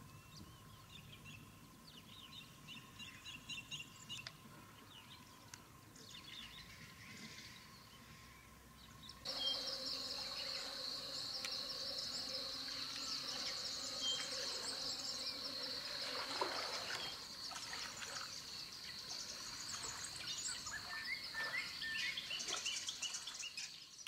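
Birds chirping and calling, quietly at first. About nine seconds in the sound changes abruptly: louder bird chatter over a steady high-pitched buzz.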